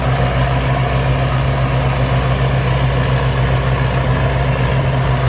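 Thai Seng Yont rice combine harvester running steadily while harvesting, a constant low engine drone with a thin steady high whine above it.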